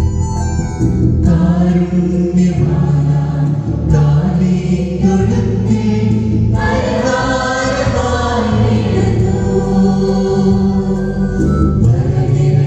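Mixed choir of women's and men's voices singing a Christmas carol through microphones.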